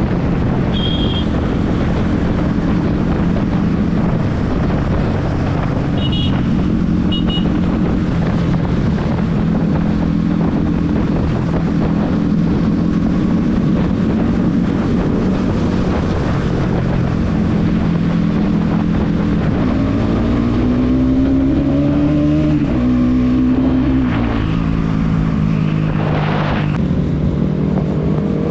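Bajaj Pulsar NS200's single-cylinder engine running at road speed among other motorcycles, with wind noise on the microphone. About twenty seconds in, the engine note rises as it accelerates. A few short high beeps sound in the first several seconds.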